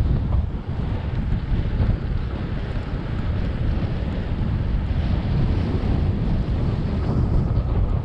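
Heavy wind buffeting a bicycle-mounted camera's microphone while riding at about 19 mph on a gusty day: a steady, dense low rumble with a fainter hiss above it.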